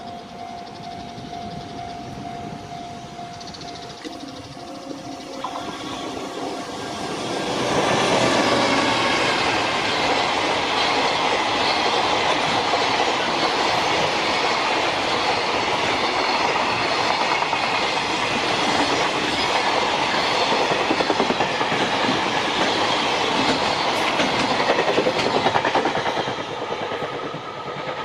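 JR Freight EF210 electric locomotive and its long rake of container wagons passing close by: quiet at first with a steady tone, then loud rolling wheel-on-rail noise with fine rhythmic clatter from about eight seconds in, easing near the end as the tail goes by.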